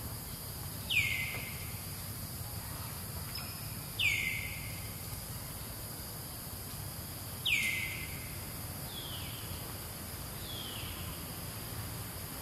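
A bird calling: three loud, short whistles that each slide quickly downward, a few seconds apart, then two fainter ones, over a steady drone of insects.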